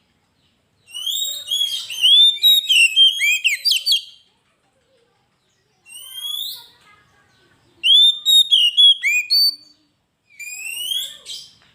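Oriental magpie-robin (kacer) singing: four phrases of loud, clear whistled notes that sweep up and down, with short pauses between them. The first phrase is a long rich tumble of notes; the others are shorter, mostly rising whistles.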